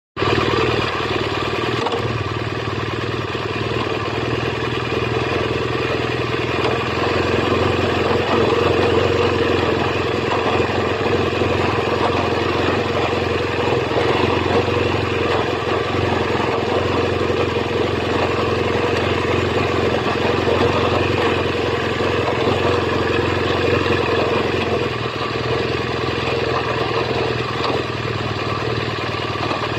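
BMW R1200GS LC's liquid-cooled boxer-twin engine running steadily at an even pitch, with no revving.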